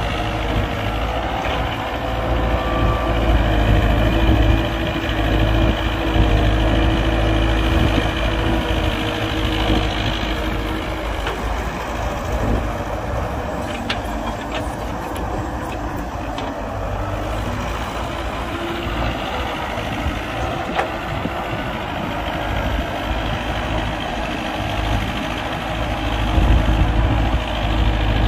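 Heavy diesel engines of an excavator and dump truck running steadily with a deep rumble. A few light clicks or knocks come around the middle.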